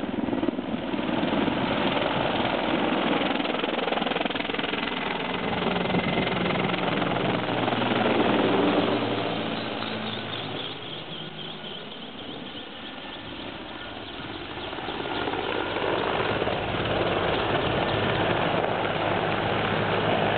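Mil Mi-24V attack helicopter's rotor and twin turboshaft engines during a low display pass. The sound is loudest about eight or nine seconds in, with its pitch sweeping as the helicopter passes overhead, then eases off before building again near the end.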